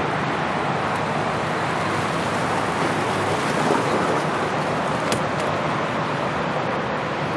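Steady rushing outdoor noise, with one brief click about five seconds in.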